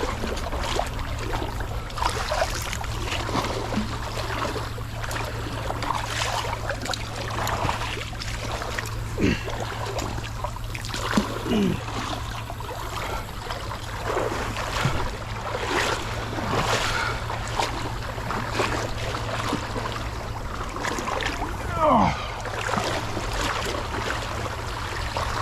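Wading through a creek: legs and feet splashing through the water, step after step, over a steady low rumble.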